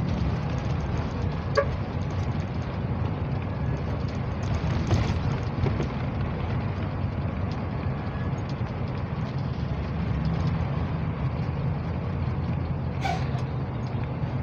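Steady engine drone and road noise heard from inside a moving road vehicle. There is a short click about a second and a half in.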